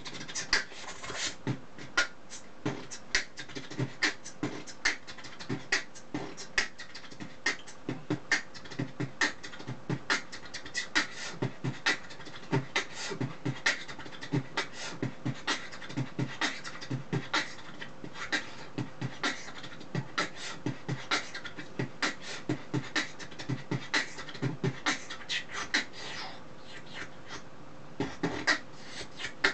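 Beatboxing: a steady, quick beat of mouth-made kicks, snares and clicks, easing off briefly near the end before picking up again.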